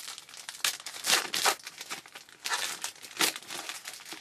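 Crinkly wrapper of a baseball card pack being torn open and crumpled, in a string of irregular rustles and crackles.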